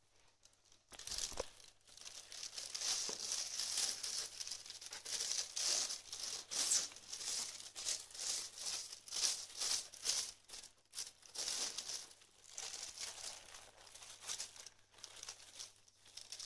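Thin clear plastic bag crinkling and rustling in quick, uneven bursts as a cat inside it licks and pushes against the plastic. The crinkling starts about a second in and keeps on with little pause.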